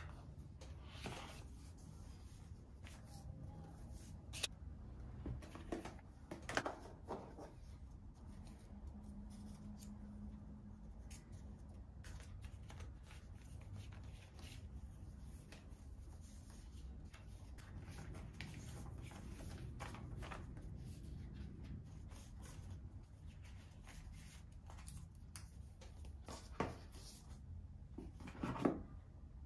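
Quiet rustling and sliding of the MacBook Air's cardboard box and paper packaging being handled, with scattered light clicks and a few sharper knocks, several of them near the end.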